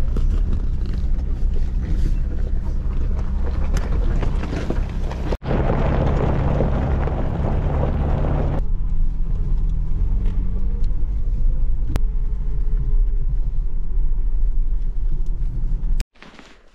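2021 Ford Bronco Badlands driving a rocky dirt trail: its engine runs steadily, mixed with a rumbling haze of tyre and road noise. The sound changes abruptly twice, about five and a half and eight and a half seconds in, where the footage is cut.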